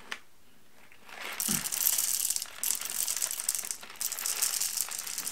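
Hario hand-crank coffee grinder crunching whole roasted coffee beans at a coarser setting, a grainy rattling as the handle is turned. It starts about a second and a half in and stops briefly twice.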